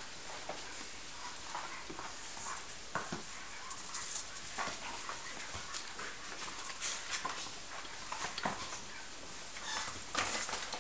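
Two English bulldog puppies playing and tussling with a rubber clog on a tile floor: scattered short knocks, scuffs and dog noises over a steady hiss.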